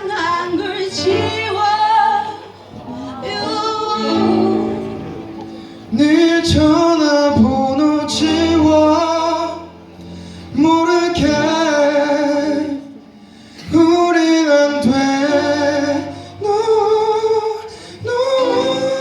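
A female voice singing a slow, melodic pop ballad line live over instrumental accompaniment, in phrases broken by short pauses.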